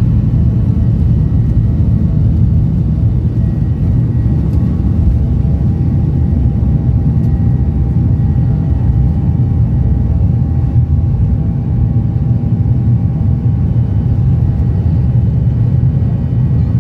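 Boeing 737-800's CFM56 jet engines at takeoff power, heard from inside the cabin: a loud, steady rumble with a thin steady whine over it, through the takeoff roll and lift-off.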